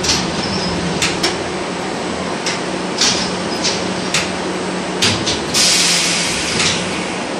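Inside an LVS-86K tram car that has stopped rolling: a steady low hum, with scattered sharp clicks and knocks and a hiss lasting about a second from about five and a half seconds in.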